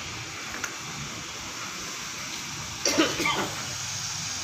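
A short burst of a person's voice about three seconds in, over a steady background hiss.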